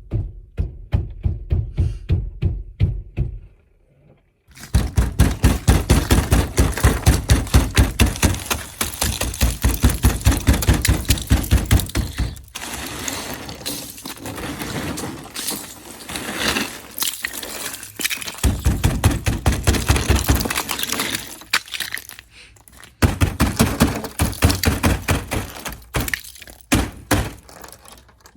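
Ice being knocked and broken off a car's body: a quick run of repeated thunks with cracking and shattering ice, in several bouts with short pauses between them.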